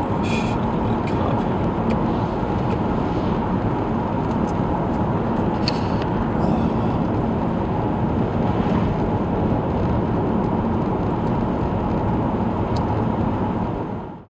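Steady rushing wind and vehicle noise with a few faint clicks. It cuts off abruptly near the end.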